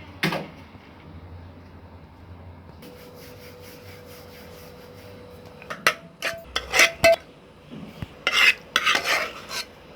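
Metal kitchen utensils clinking and scraping: a spoon knocking and scraping against steel dishes, in a clatter right at the start and a run of sharp, ringing clinks from about six seconds in.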